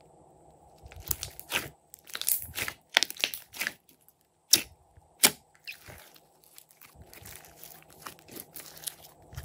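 Glossy slime being poked and squeezed by hand, making sticky clicks and pops. Clusters of sharp pops come in the first few seconds, two loud single pops follow about four and a half and five seconds in, and then a softer, thinner crackle.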